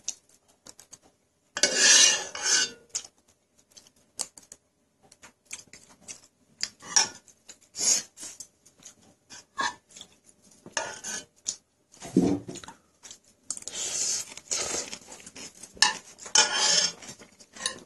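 Metal spoon scraping and clinking against a pot in irregular strokes, mixing cold rice into leftover jjapaghetti sauce.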